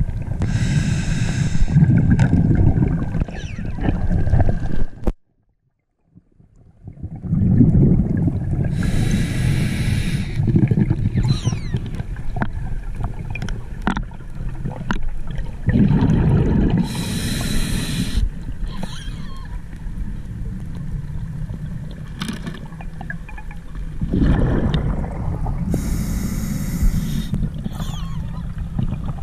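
Underwater sound through a camera housing on a descending dive: a steady low rumble of water, broken every eight seconds or so by a hissing, bubbling burst lasting a second or two, in the rhythm of a diver's breathing. The sound cuts out completely for about a second and a half around five seconds in.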